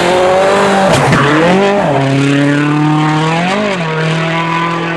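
Rally car engine at high revs on a snow stage, its pitch dropping and climbing again twice as the driver lifts and gets back on the throttle, with a few sharp cracks about a second in.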